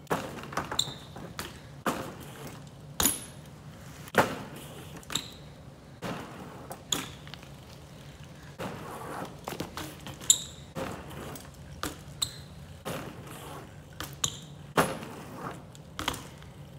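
BMX bike knocking and clanking: a string of sharp, irregular knocks about once a second, several with a short metallic ring, over a low steady hum.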